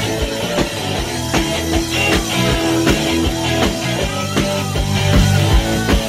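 Live rock band playing the instrumental intro of a punk-rock song: a driving bass-guitar riff over a steady kick drum at about two to three beats a second, with guitar.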